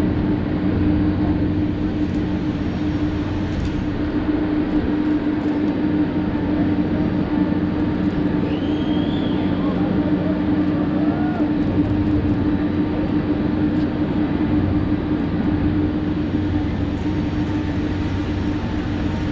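Steady mechanical drone with a constant low hum from the parked Airbus A300-600ST Beluga and the ground equipment around it as its upper cargo door is raised, with faint voices of ground crew over it.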